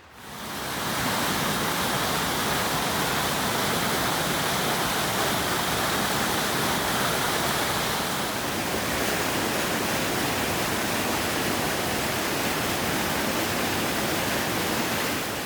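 A mountain creek rushing in full spate, swollen by heavy overnight rain: a loud, steady roar of fast-moving water that fades in over the first second.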